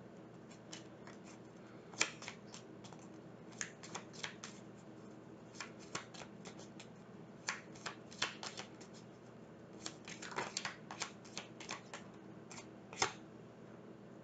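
Tarot deck being shuffled by hand: irregular soft clicks and snaps of cards, a few a second, with a faint steady hum underneath.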